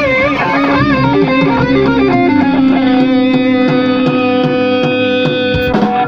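Live blues-rock band playing loud: electric guitar notes bent and shaken with vibrato, then a long held note over a steady drum beat.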